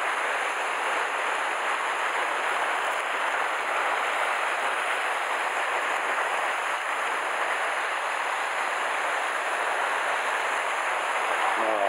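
Sea waves breaking and washing over rocks: a steady, even rush of surf.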